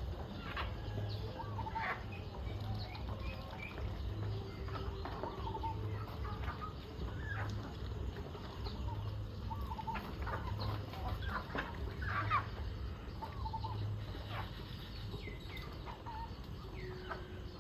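A flock of domestic chickens clucking at feeding time, with many short calls scattered throughout. A low hum pulses about once a second underneath.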